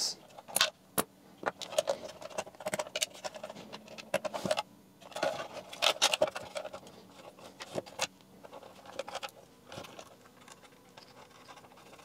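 Handling sounds of a thin laser-cut wooden box being assembled: irregular light clicks, taps and knocks of the wooden panels, with scraping, rustling of wires and small metal parts rattling.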